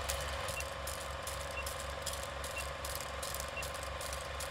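Old film projector running: a steady rhythmic mechanical clatter with irregular crackles and pops of worn film. A short, faint high beep sounds about once a second, four times.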